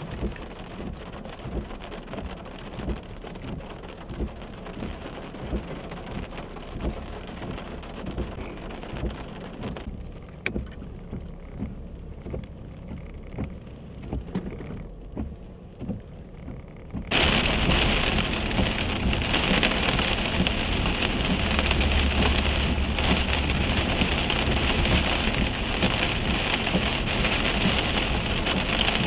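Steady rain falling. About two-thirds of the way through it cuts suddenly to much louder heavy rain pelting a vehicle as it drives.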